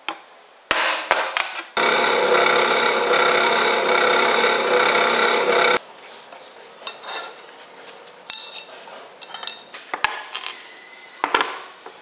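A hammer strikes a center punch on a steel bar a few times, then a drill press runs steadily for about four seconds, drilling the steel, and cuts off suddenly. After that come scattered light metal clinks and scrapes as the chips are brushed away and parts are handled.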